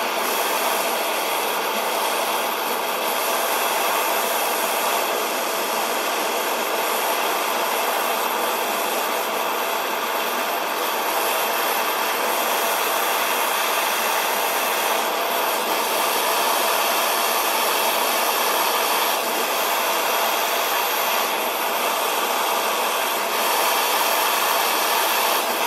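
Propane torch burning with a steady hiss while it heats a thin steel tube and patch for silver soldering.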